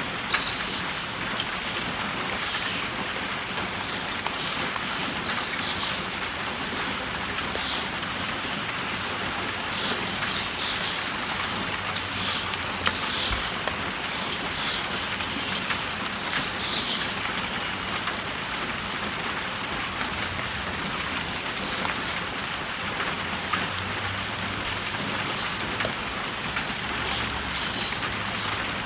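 Steady rain falling on a tin roof and on three inflated rubber balloons: a constant patter with single drops tapping sharply on the balloons here and there.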